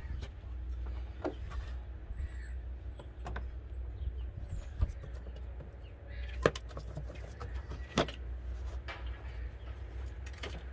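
A plastic battery cover being unclipped and lifted off a car's battery box: a few separate sharp plastic clicks and knocks a second or two apart, over a low steady rumble.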